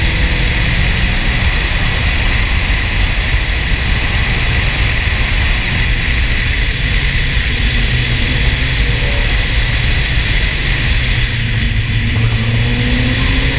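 A Porsche 968 driving fast on a winding road: steady wind and road noise, with the engine faintly underneath and rising in pitch near the end.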